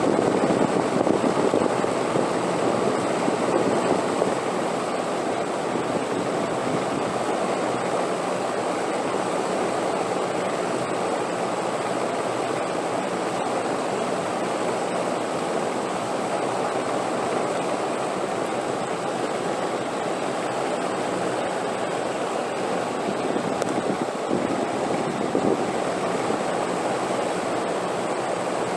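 Steady wind, a continuous rushing noise with no gusts or breaks, slightly stronger for the first few seconds before settling.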